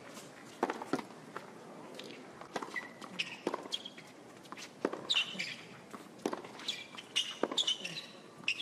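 Tennis rally on a hard court: sharp pops of rackets striking the ball and ball bounces, irregularly spaced, with short high squeaks of shoes on the court surface. A brief lull about four seconds in comes between points.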